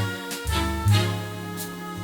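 Background music: an upbeat swing-style instrumental with a walking bass line and a steady beat.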